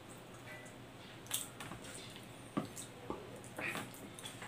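Quiet mouth sounds of a person chewing soft raisin bread: a few short wet smacks and clicks spaced out over the seconds. Near the end, the bread's crust is torn by hand.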